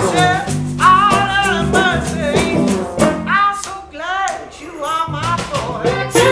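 A small band playing a loose blues-rock groove: electric guitars and bass over a steady beat of drumsticks tapped on a box. Above them runs a lead line that slides up and down in pitch.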